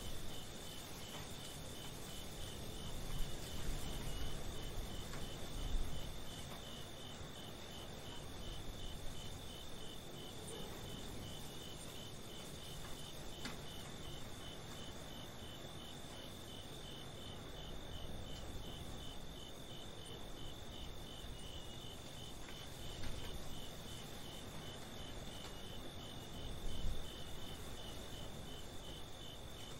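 Crickets chirping steadily in an even, regular pulse, over a low rumble that swells now and then.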